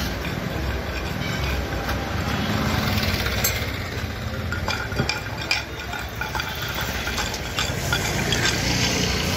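A nearby engine idling steadily, with scattered light clicks and scrapes from a farrier's hand tools working a horse's hoof.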